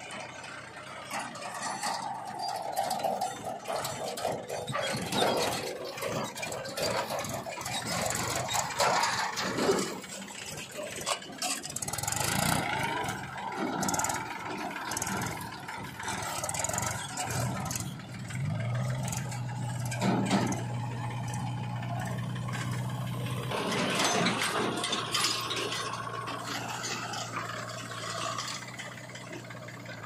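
Mahindra 265 DI tractor's three-cylinder diesel engine running as it drives its trolley over rough dirt, with irregular knocking and rattling, mixed with a JCB 3DX backhoe loader's diesel engine. A little past the middle a steady low engine note settles in and holds.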